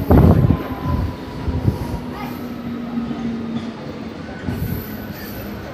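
Electric suburban local train (EMU) running slowly along a platform as it pulls in to stop, heard from the coach doorway: a couple of heavy knocks at the start, then a rumble that dies down as the train slows, with faint thin squeals from the wheels and brakes.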